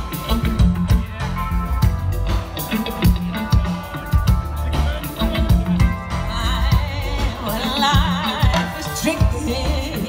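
Live band playing an upbeat African pop song, with a steady drum beat, bass and singing.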